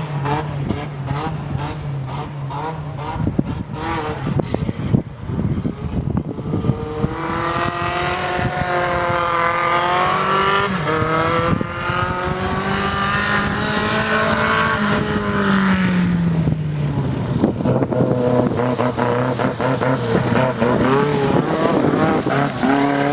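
Renault rally car's engine pulling hard on a gravel stage, its pitch climbing and dropping at each gear change. About two thirds of the way in the revs fall away, then rise again as the car comes close and passes.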